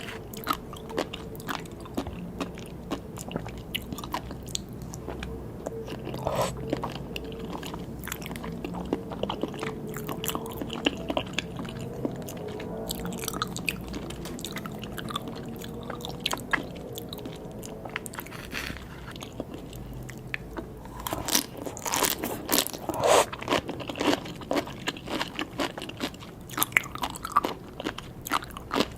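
Close-up eating sounds of fresh sea grapes and salmon sashimi: crunchy bites and wet chewing in a steady string of sharp clicks, with louder bites bunched together near the end.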